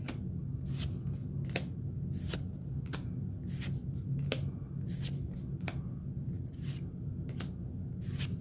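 Pokémon trading cards from a fresh booster pack handled and flicked through one by one: a string of short, crisp card snaps, roughly one every half second to second.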